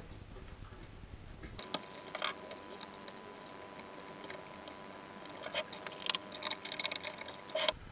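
Light clicks and rattles of small metal hardware being handled while a stepper motor is fitted into its mount, most of them in the last few seconds.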